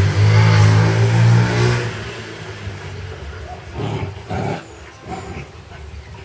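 Doberman puppies growling while tugging on a rope toy: a loud, low growl for about the first two seconds, then two shorter growls about four seconds in.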